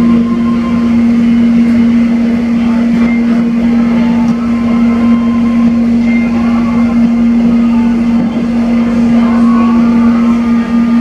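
Passenger cabin of an electric multiple-unit airport train running at a steady speed: a steady low hum that holds one pitch, over the running noise of wheels on the track.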